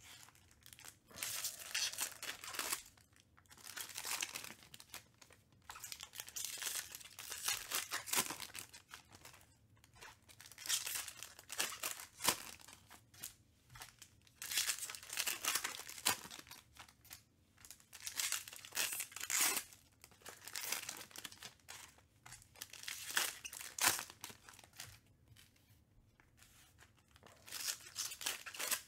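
Foil wrappers of Panini Prizm baseball card packs being torn open and crinkled by hand, in repeated short bursts of tearing and crinkling.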